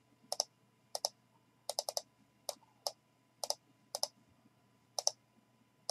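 Quiet, irregular clicks of a computer mouse and keyboard, about ten in all, many coming in quick pairs.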